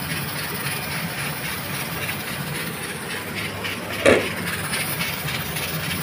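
Steady hiss of a gas stove burner under a pot of curry simmering. About four seconds in comes a single clunk as a glass pot lid is set down on a stone counter.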